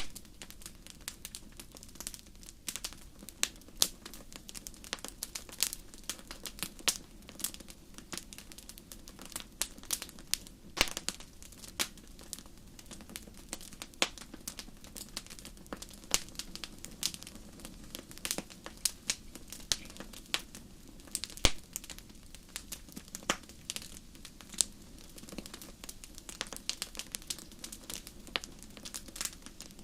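Wood fire crackling: a steady low hiss with frequent irregular sharp pops and snaps from the burning logs.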